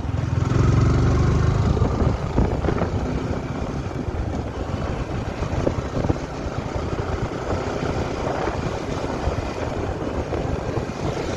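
Sport motorcycle's engine running as the bike gathers speed on the road, mixed with wind rushing over the microphone. The low engine rumble is heaviest in the first couple of seconds.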